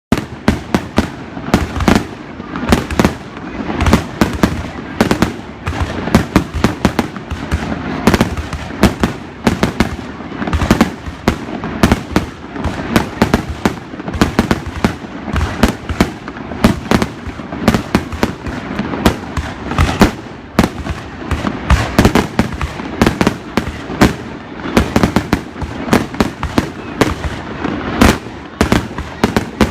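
Fireworks going off continuously: loud, sharp bangs in quick irregular succession, several a second, with no let-up.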